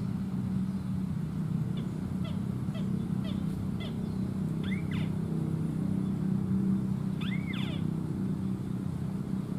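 A bird calling over a steady low drone. First comes a quick run of short falling chirps, then two arched calls that rise and fall, about five and seven and a half seconds in.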